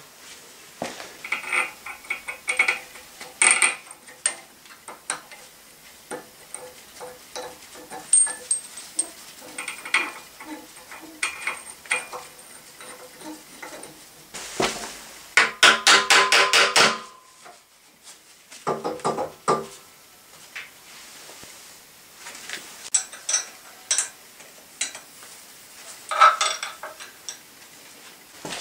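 Metal parts of an elevator traction machine clinking and knocking as they are handled and fitted at the coupling between the motor and the brake drum. Scattered clicks and clanks, with a quick run of rapid clicks about halfway through.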